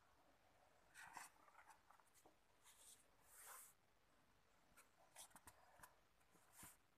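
Paper of an old handwritten book rustling as a hand turns and smooths its pages: soft, faint swishes and brushes, the longest about three and a half seconds in.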